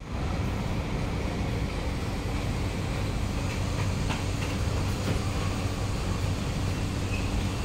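Steady low hum inside a stationary Kawasaki–CRRC Sifang C151A train car with its doors open, from the car's onboard equipment such as air-conditioning, with a faint click about four seconds in.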